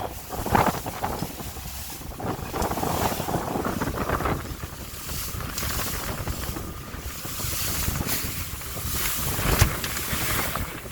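Wind buffeting the microphone in uneven gusts, with waves and spray around a small motorboat running through rough, choppy water.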